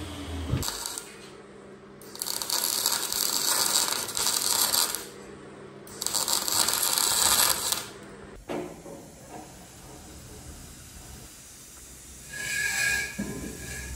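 Compressed-air tool hissing in two bursts, about three seconds and then under two seconds long, worked over a rusty steel bumper. A shorter hiss with a steady whistle comes near the end.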